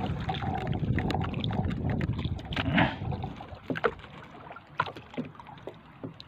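Sea water sloshing and splashing as a hand works in a mesh bait net held in the water beside a small boat, dying away about three seconds in. After that come a few faint clicks as shrimp bait is handled.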